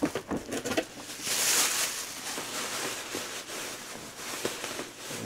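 Rustling and handling noise close to the microphone, with scattered soft clicks and knocks; the rustling is loudest about one to two seconds in.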